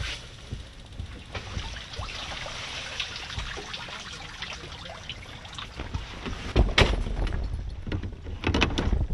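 Nylon fabric of a pop-up ice-fishing shelter rustling as it is pulled back, with scattered small clicks. Near the end come several loud knocks and a low rumble on the microphone.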